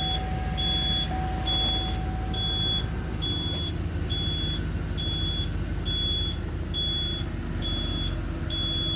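Reverse warning beep inside a Chevy Express van in reverse gear: a short high beep repeating a little faster than once a second, over the engine idling.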